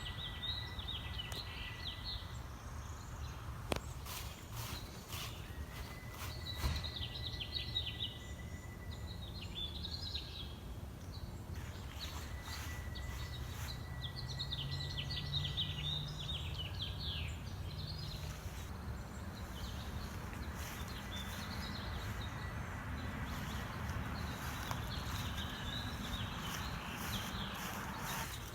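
A steady, single-pitched whistle, held for about two seconds and repeated three times at roughly six-second intervals in the first half. Bursts of rapid chirping calls run over it through the whole stretch.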